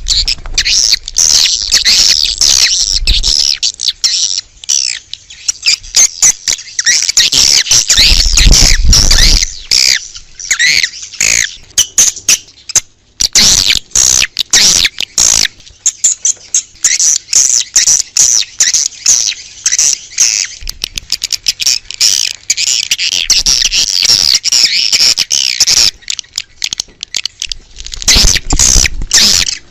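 Edible-nest swiftlets twittering: a dense, loud chorus of overlapping high chirps and trills, with a brief lull about halfway. It is a swiftlet lure recording of the 'outside' call, played to draw swiftlets to a nesting house.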